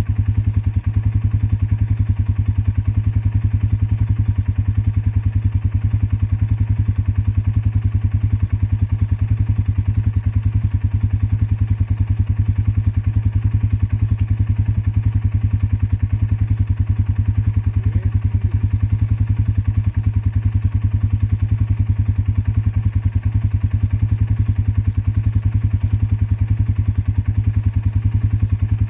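Four-wheeler (ATV) engine idling steadily, a loud low hum with a fast even pulse. A few faint clicks near the end.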